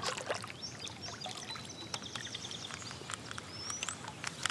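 Kayak paddle dipping into calm water, with water dripping and trickling off the blade in many small splashes. A thin high bird call sounds in the background, with a short rising chirp near the end.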